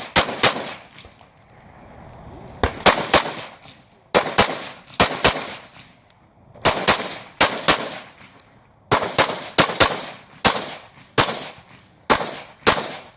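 Open-class competition pistol fired rapidly in quick pairs and short strings of shots, with brief pauses between strings.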